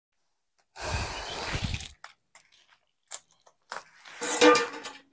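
Dry sal leaves rustling and crackling as hand-pinned leaf plates are handled, with a few sharp clicks between two stretches of rustling; the louder stretch comes near the end.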